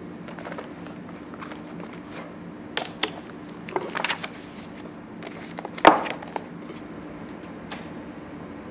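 A book and a spiral notebook being handled on a desk: a few light clicks, taps and rustles, with one louder knock about six seconds in, over a steady low room hum.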